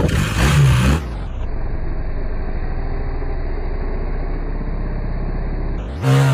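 BMW R1300 GS boxer-twin engine revving as the rear tyre spins in loose dirt. It is loud in the first second and again near the end, with a steady engine drone in between.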